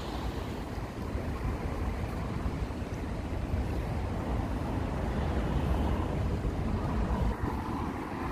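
Wind buffeting the microphone over the steady noise of city street traffic.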